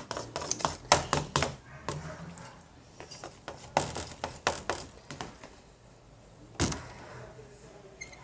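A run of quick clicks and knocks in the first two seconds, a few more around the middle, and one louder knock about six and a half seconds in.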